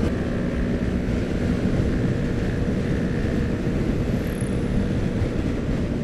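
Steady riding noise from a motor scooter cruising along a road: wind rushing over the helmet camera's microphone with the scooter's engine droning underneath, at an even level throughout.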